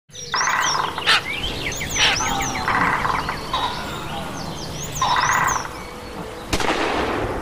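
Birds chirping and calling, with repeated short chirps and rapid trilled phrases. A single sharp crack comes near the end.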